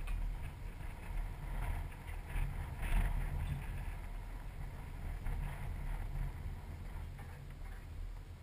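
Wind rumbling on the microphone, with faint scuffs and clicks, a little louder about three seconds in.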